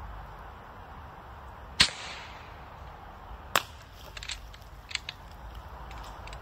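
Two sharp cracks from a PCP air rifle firing at a block of ice, about two seconds apart, the first the loudest with a brief ringing tail. A few lighter clicks follow.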